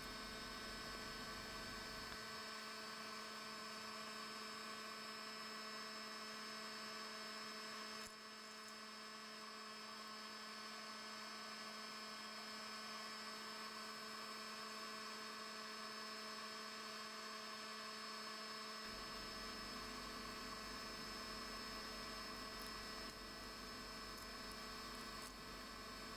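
Faint, steady electrical hum with several fixed tones and a light hiss.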